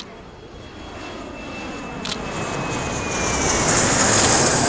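Jet aircraft flying past: the engine noise grows steadily to its loudest about four seconds in, then begins to fade, with a thin whine falling in pitch as it goes by.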